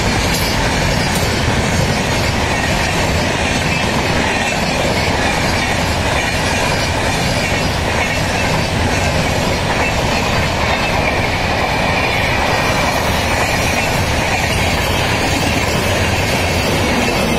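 Passenger express train's coaches passing close by at speed: a loud, steady rush of steel wheels running on the rails, with a thin high squeal of the wheels above it.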